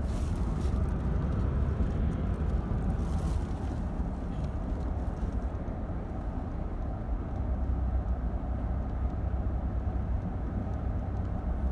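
Road and engine noise inside the cabin of a moving car: a steady low rumble, with brief hisses near the start and about three seconds in.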